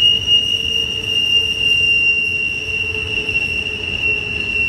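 Intermodal container well cars rolling past on a tight curve, their wheel flanges squealing in one steady high-pitched tone over a low rumble of wheels on rail.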